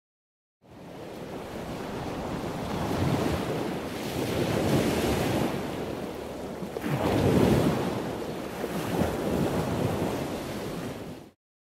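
Ocean waves washing in, swelling and ebbing several times. The sound fades in about a second in and cuts off suddenly near the end.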